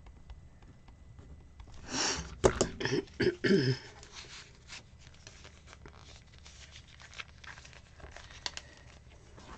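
Things being handled on a desk: a loud burst of crinkling and rustling with several sharp clicks about two seconds in, lasting under two seconds, then a few faint ticks.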